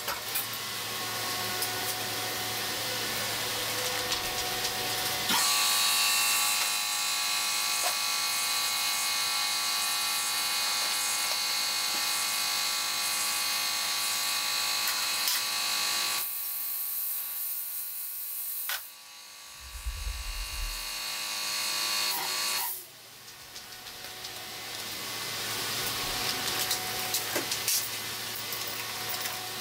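A steady mechanical buzzing hum with hiss, changing abruptly several times, with a few clicks and a brief low thump about two-thirds through.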